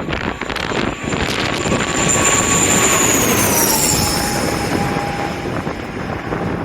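A Bombardier airliner on landing approach passing low overhead: its engine noise swells about a second in, and its whine falls in pitch as it goes by, about three to four seconds in. Strong wind buffets the microphone.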